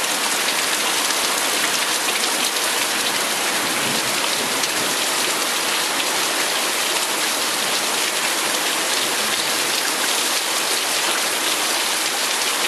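Heavy thunderstorm rain pouring down steadily: an even, unbroken hiss of rain on the ground and surfaces.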